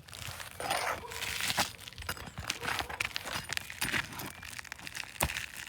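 Asphalt shingles scraping and crackling as a roof snake is worked under them to pry out roofing nails, with irregular sharp clicks and taps, the loudest about five seconds in.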